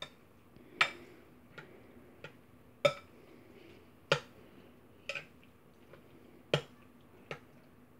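Utensil clinking and knocking against a bowl while mixing pasta salad: sharp separate clinks at uneven intervals, roughly one a second.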